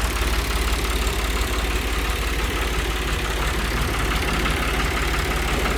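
Long 350 farm tractor's diesel engine idling steadily, with an even low pulse.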